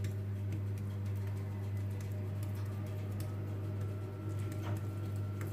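Steady low hum, with soft scraping and light taps of a metal spoon spreading raw minced-meat filling over a rolled-out dough circle.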